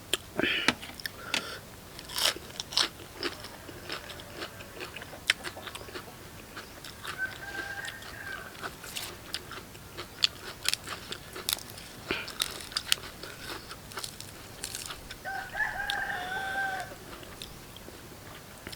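Close-up crunching and chewing of crisp raw vegetables, in sharp irregular bites. A rooster crows twice in the background, about a third of the way in and again near the end.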